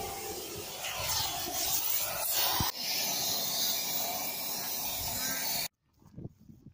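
Gas cutting torch hissing steadily as it cuts steel, with a brief dip a little before halfway; the hiss cuts off suddenly near the end.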